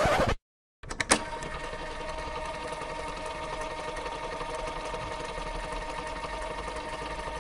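A small machine starting with a couple of clicks and then running steadily with a fine, even clatter.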